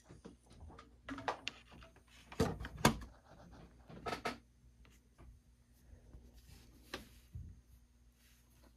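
Handling noises: a run of irregular clicks and knocks, the loudest about three seconds in, over a faint steady hum.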